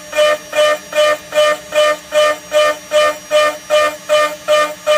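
ShopBot CNC router dry-milling 5 mm low-carbon steel with a 4 mm two-flute end mill at 18,000 rpm on a trochoidal toolpath. A ringing cutting tone pulses about two and a half times a second as the cutter bites into the steel on each loop, over a steady spindle hum.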